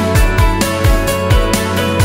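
Background music with a steady beat: a deep kick drum about twice a second under sustained chords.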